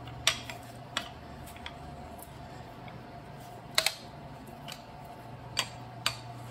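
Sharp metallic clicks and clinks of a wrench unscrewing a crank puller from a removed bicycle crank arm, half a dozen scattered clicks over a steady low hum.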